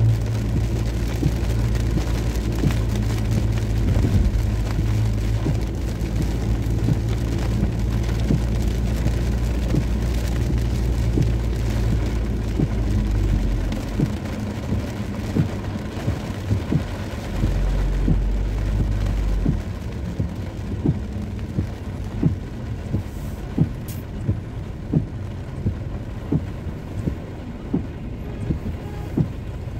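A car's engine and tyres drone, heard from inside the cabin while driving in rain, with rain on the windscreen. The low drone drops away about halfway through as the car slows to a stop, returns briefly, then fades. Rain noise and a sharp regular knock about once a second follow.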